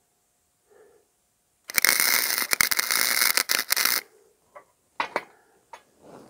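Wire-feed welder arc crackling for about two seconds as a weld is laid on a steel exhaust pipe, on a low setting so as not to burn through the thin metal, followed by a few sharp clicks.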